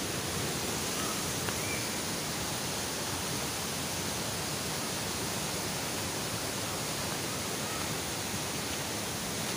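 Waterfall's steady rush of falling water, an even hiss with no splashes or breaks.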